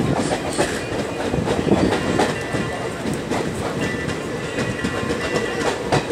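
Passenger train running along the track, its coach wheels clattering over the rails with a steady rumble, heard from an open coach window.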